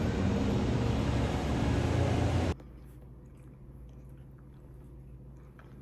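A steady rush of outdoor ambient noise, heaviest in the low end, that cuts off abruptly about two and a half seconds in. After it comes a quiet room with a few faint small clicks and taps.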